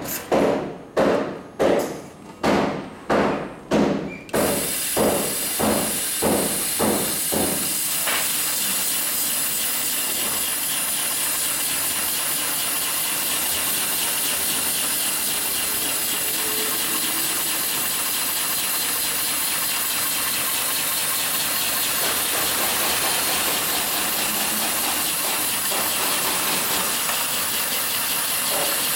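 HighTex 205-370 heavy-duty cylinder-arm, triple-feed sewing machine stitching thick webbing sling: heavy stitch knocks about two a second at first, quickening until they merge into a steady running noise about eight seconds in. A steady hiss comes in suddenly about four seconds in and stays.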